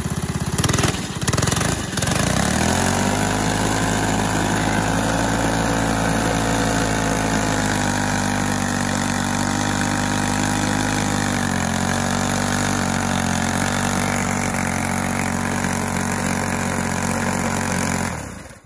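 Go-kart's small engine revved a couple of times, then held at full throttle for about fifteen seconds while the wooden rear wheels spin on the asphalt in a smoky burnout, before cutting off suddenly near the end.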